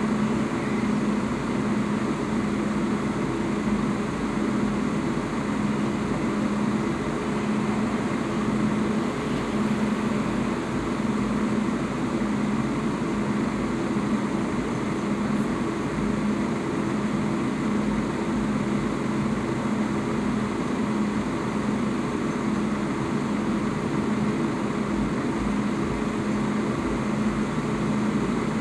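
Chrysler Sebring convertible running while its power top folds down into the trunk: a steady mechanical hum that holds the same pitch throughout.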